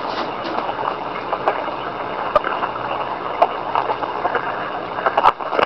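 Ferrets rolling around and wrestling on a blanket close to the microphone: steady rustling of fabric with a few sharp knocks, the loudest a little before the end.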